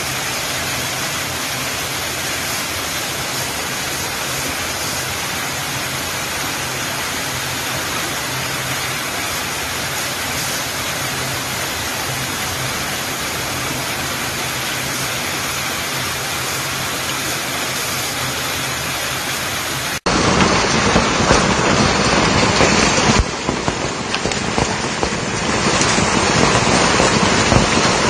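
Hailstorm: hail and heavy rain pelting down as a steady hiss. About twenty seconds in it cuts to a louder, rougher downpour, which dips briefly a few seconds later.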